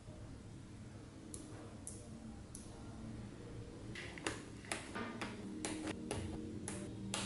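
Small magnet balls clicking as they snap onto one another: a few scattered clicks at first, then a quicker run of clicks in the second half as a chain of balls is laid along the edge of a small hexagon.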